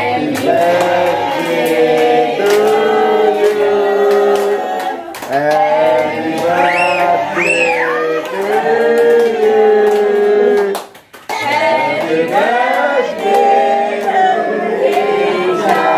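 Singing voices in long, held, melodic phrases, broken off briefly about five and eleven seconds in. About seven seconds in, two short high rising-and-falling sounds rise above the song.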